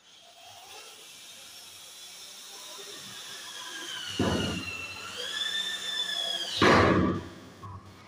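Cordless drill-driver whining as it drives screws into a door lock's faceplate, the motor's pitch dipping under load, with two short loud rattles about four and six and a half seconds in.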